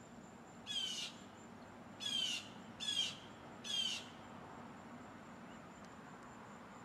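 A bird calling four times, about a second apart, each call short and sweeping down in pitch.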